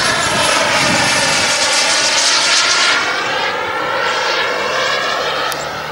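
Small model jet turbine (a JetCat of about 14 kg thrust in a Top-RC Odyssey RC jet) flying past: a steady rushing jet noise that swells to its loudest around the middle and eases off near the end, with a sweeping, phasing sound as the jet passes.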